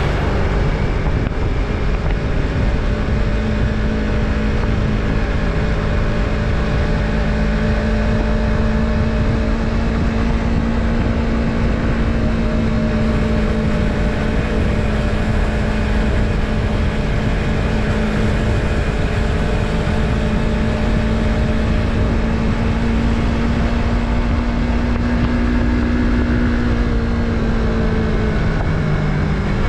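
Yamaha MT-03 321 cc parallel-twin engine running at a steady cruise, heard from the rider's position with wind rush, its note creeping slowly higher and then dropping a little before the end as the bike slows or shifts.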